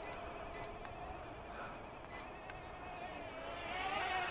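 R11 Nimble toy quadcopter's small motors buzzing at a steady high pitch, with short electronic beeps from the controller three times as its trim buttons are pressed. Near the end the buzz swells as the motors speed up.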